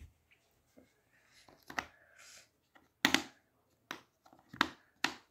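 Plastic Othello discs clicking as they are placed and flipped over on the game board: about five sharp clicks, unevenly spaced.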